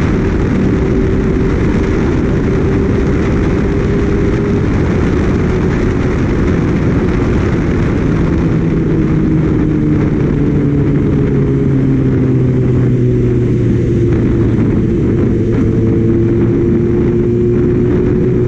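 Kawasaki Ninja ZX-6R inline-four engine running at speed under a heavy, steady rush of wind noise. The engine note drifts slowly lower in the middle, then holds steady.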